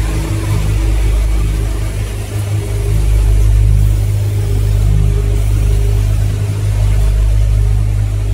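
Automatic filter assembly machinery and its vibratory bowl feeder running together: a steady low buzz that does not let up.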